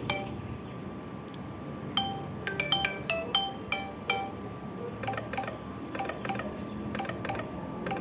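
A Samsung Galaxy J3 (2016) ringtone playing: a melody of short bell-like chime notes in repeating phrases. A bright run of notes about two seconds in is followed by quieter notes. A faint steady whine runs underneath.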